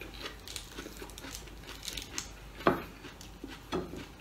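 Crisp iceberg lettuce leaves being torn and handled, a run of small crinkling crackles, with a sharper snap about two-thirds in and another near the end.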